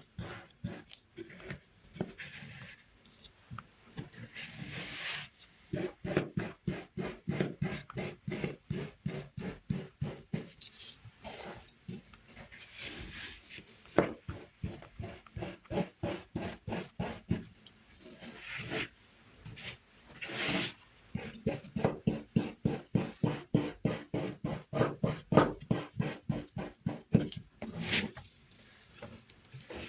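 Kinetic sand being cut with a knife: a quick run of gritty slicing and crunching strokes, several a second, coming in bursts.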